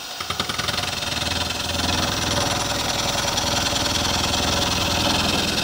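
A milling machine's coated end mill cutting steel, milling the flat back surface of a welded steel housing. The cutting noise builds over the first two seconds as the cutter bites in, then holds steady.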